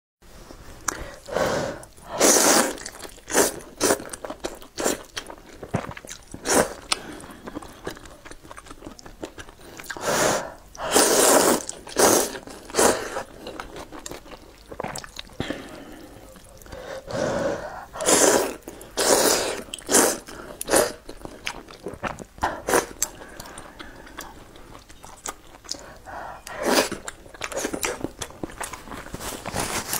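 Close-miked eating of a bowl of noodles in spicy soup: loud slurps of noodles, each about a second long and coming every few seconds, with chewing in between.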